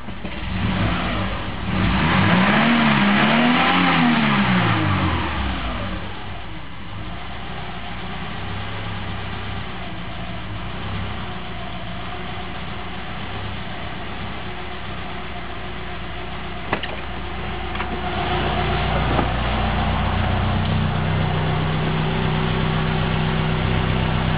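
1998 Subaru Forester's flat-four engine idling at about 1,000 rpm. A couple of seconds in, its pitch rises and falls twice and it runs louder, then it settles to a steady idle. From about three-quarters of the way through it runs louder again, with a single click just before. This is the early-morning idle problem that the owner says cleaning the idle air control valve, mass airflow sensor and throttle body seemed to cure.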